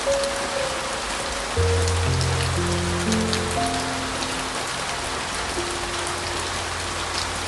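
Steady heavy rain with scattered drop clicks, under slow, soft piano music: held notes, with a low bass note coming in about a second and a half in.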